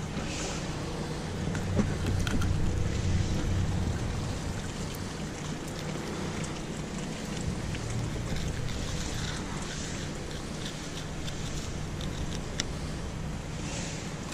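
Steady low rumble of wind on the microphone, with a few faint clicks and scrapes as a fillet knife works along a pompano on a plastic cleaning table.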